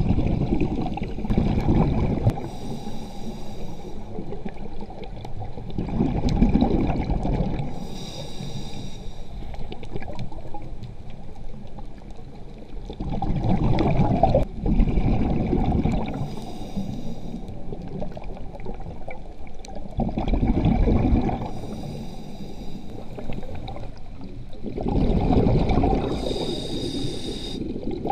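Scuba diver breathing through a regulator underwater. A short hiss on each inhale is followed by a longer gurgling rush of exhaled bubbles, about five breaths in all.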